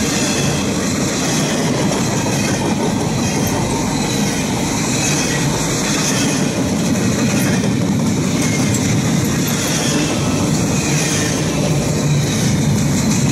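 Cars of a long freight train rolling past at close range: the steady, loud noise of steel wheels running on the rails.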